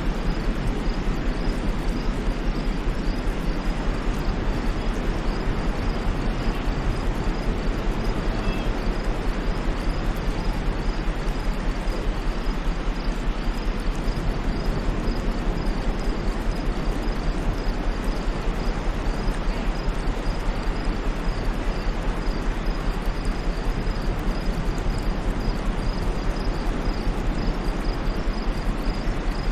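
Steady white noise at an even level, with a faint, evenly repeating high insect chirp, like crickets, running through it.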